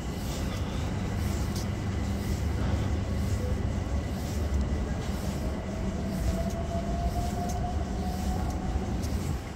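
London Underground train standing at the platform, its equipment giving a steady low rumble, with a faint whine rising slightly in pitch from about halfway through.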